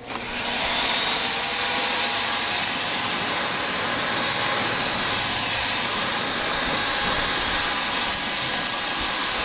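Handheld electric paint sprayer switching on and running steadily while spraying paint, a loud, even hiss.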